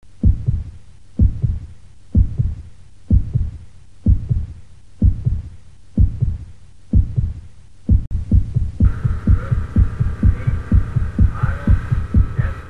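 Heartbeat sound effect: low double thumps about once a second, quickening to about two a second after about eight seconds, when a steady hum joins underneath.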